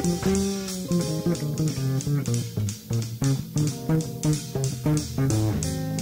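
Band music: a guitar playing a melodic line with a few bent notes over a bass guitar line, with a steady ticking beat about four times a second.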